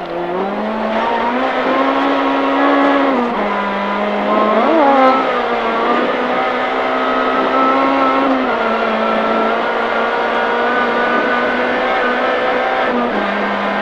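Honda Civic Type-R rally car's engine running at high revs, heard from inside the cabin. Its pitch holds fairly level and steps down about three seconds in and again past the middle, as at gear changes.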